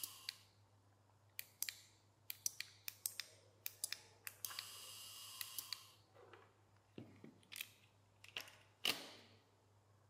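Relay module clicking sharply several times as the remote switches its channels, with a small DC gear motor whirring briefly about halfway through. Near the end come a few knocks as the motor and remote are set down on the mat.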